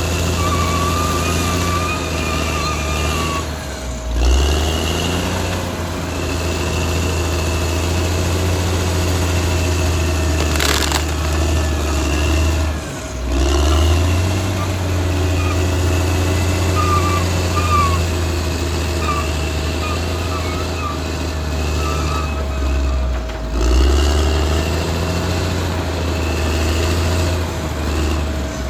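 Caterpillar D6R XL bulldozer's diesel engine running steadily under load. Its deep note sags and recovers three times: a few seconds in, again about halfway, and near the end. Wavering high squeaks come and go over it, and there is a single sharp knock about ten seconds in.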